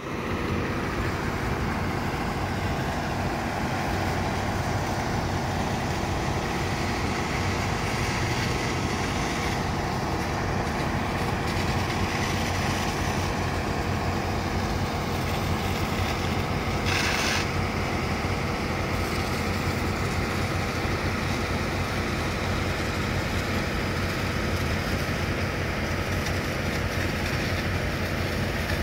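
Fire engines' diesel engines running steadily, working their pumps, a constant low hum. There is a short hiss about halfway through.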